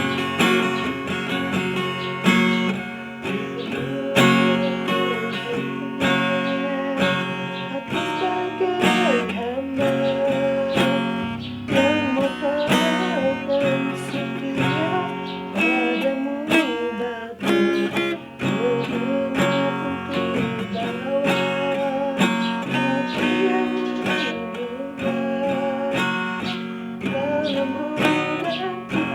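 Acoustic guitar strumming chords as an instrumental passage of the song. A wavering melody line rides above it from about eight seconds in.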